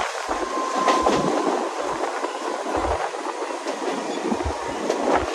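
Mumbai suburban local train running, heard from inside the coach: a steady rumble of wheels on the rails, with a low clack of rail joints every second or so.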